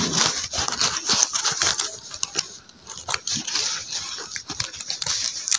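A hand rummaging in a cloth pouch: fabric rustling, with many quick clicks and crinkles from handling close to the microphone.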